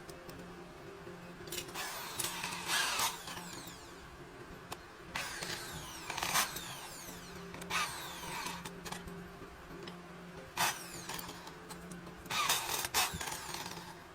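A power tool worked in about five short bursts, the longest lasting around a second, over a steady low hum.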